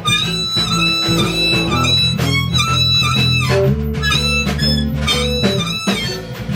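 Blues band playing: guitar with bended, held notes over a steady bass line.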